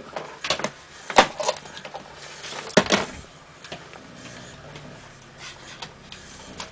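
X-axis stepper motor of a DIY 3D printer kicking and stuttering through a bad connection where its cable enters the motor. It gives a few sharp clicks and knocks in the first three seconds, then a faint low hum.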